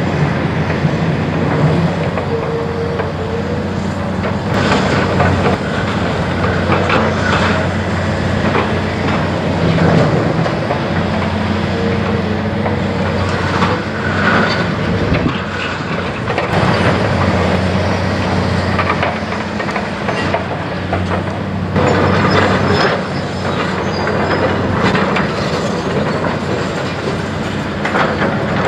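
Hydraulic excavators' diesel engines running steadily under load while their steel buckets scoop and scrape broken concrete rubble, the chunks clattering and knocking irregularly.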